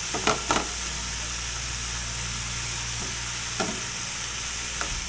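Chopped cabbage, bean sprouts and onions sizzling in a frying pan, with a slotted spatula stirring and scraping against the pan a few times: twice near the start and twice later on.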